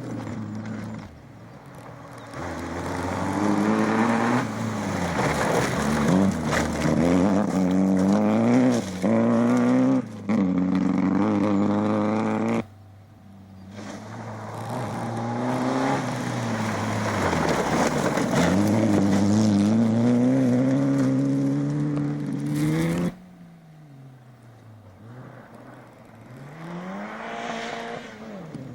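Rally cars driven hard on a stage, engines revving high and rising and falling in pitch through repeated gear changes as they pass. The sound cuts off abruptly twice, and near the end a quieter, more distant engine rises and falls.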